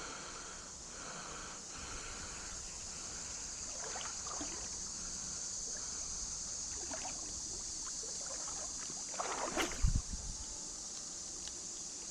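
Steady rush of a flowing creek, with a few short sloshing splashes of water as someone wades through it. The loudest splash, with a low thump, comes near the end.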